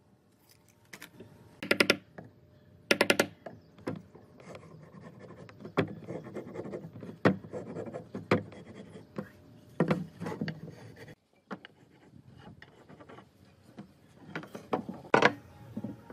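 Hand-tool work on a pine block: a wooden marking gauge scraping and scratching along the wood as it scribes lines, with sharp knocks of wood on the wooden tabletop. There are two short rattling bursts about two and three seconds in.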